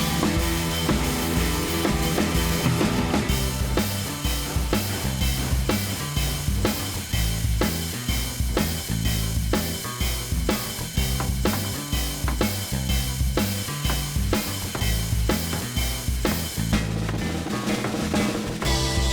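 Background music with a steady drum-kit beat: bass drum and snare over a bass line.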